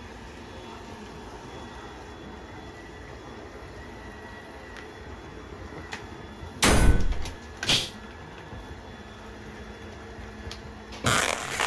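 Robot vacuum cleaner running with a steady hum. About seven seconds in there are two loud knocks a second apart, and near the end a burst of clattering starts.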